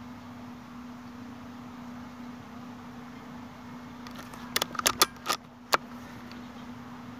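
A quick run of five or six sharp metallic clicks about four and a half seconds in, from handling the Weihrauch HW100 .22 air rifle, over a steady low hum.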